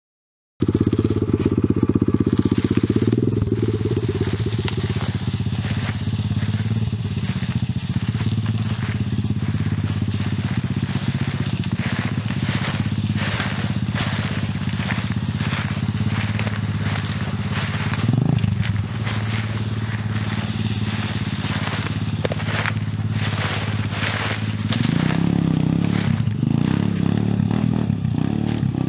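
Pitster Pro pit bike's big-bore single-cylinder four-stroke engine running and revving as it is ridden over dry leaf litter, under constant crackling and crunching of leaves and twigs. The engine note rises briefly about two-thirds of the way through and is louder near the end.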